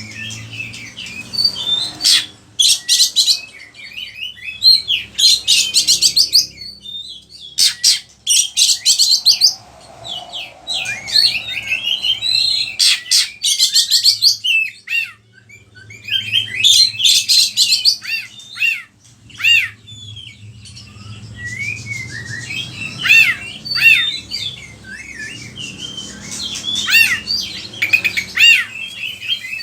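Oriental magpie-robin (kacer) singing loudly in varied phrases, with bursts of rapid stuttering notes and quick falling whistles near the end. The song is laced with isian, calls of other birds that it has learned and mimics.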